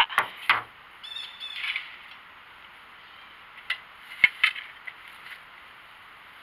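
Garden pitchfork turning a compost pile of dry leaves and cut vines: scattered rustling with a few sharp clicks and knocks, the loudest about four seconds in.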